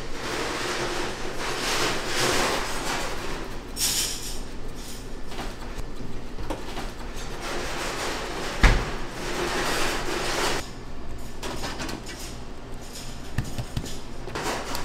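Kitchen food-preparation sounds: repeated scraping and rustling in swells, with one sharp knock a little past the middle.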